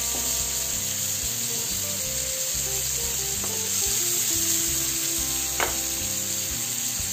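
Whole pomfret shallow-frying in coconut oil in a nonstick pan: a steady sizzle.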